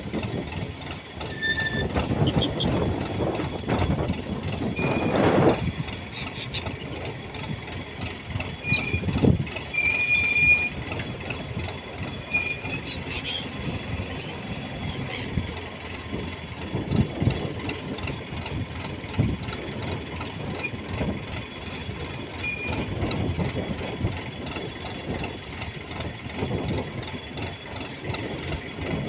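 A fishing boat's engine running steadily, with choppy waves splashing and slapping against the hull. Occasional short high squeaks come through the rumble.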